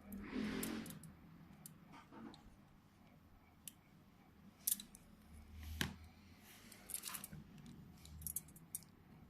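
Small tool clicks and taps from close-up electronics repair work, with a short hiss near the start and scattered sharp ticks after it.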